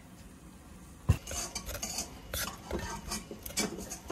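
Wooden rice paddle scraping and knocking against the inside of a pot while cooked rice is scooped out. A sharp knock comes about a second in, followed by a run of short, uneven scrapes and taps.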